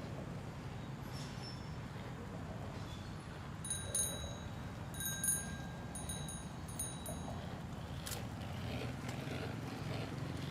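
A bicycle bell rung several times in quick succession, starting about four seconds in, each ring briefly sustained, over a steady low rumble. A single sharp click follows about a second later.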